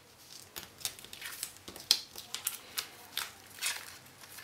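Paper cards sliding into the clear plastic pockets of a scrapbook pocket page: a series of short rustling scrapes of card against plastic.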